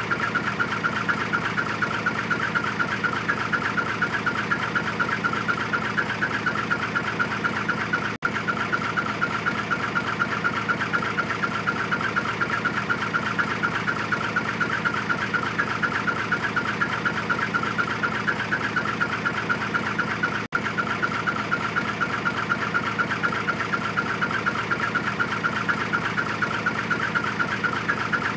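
Hino Profia dump truck's diesel engine idling through a twin-tip ("W") muffler, giving a steady rapid-pulsing, chirping "chun-chun-chun" exhaust note. It drops out for an instant twice, about 8 and 20 seconds in.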